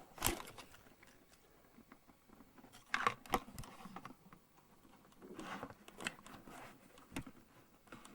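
Scattered sharp clicks and a few brief rustling bursts, light handling noise with no steady sound behind it.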